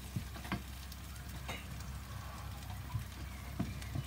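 Onions with tomato paste and ginger-garlic paste sizzling in a nonstick frying pan while a wooden spoon stirs them, with scattered light knocks and scrapes of the spoon against the pan.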